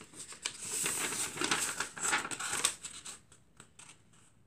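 A sheet of white paper rustling and crinkling as it is handled and folded by hand, with small crisp crackles; the rustling dies down about three seconds in.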